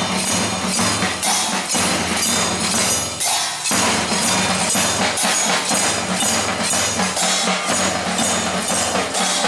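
A children's marching band of bass drums, side drums and cymbals playing a steady march beat, about two beats a second.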